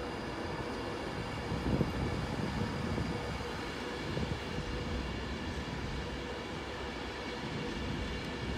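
Class 390 Pendolino electric train pulling out of the station: a steady low rumble with a faint steady tone above it.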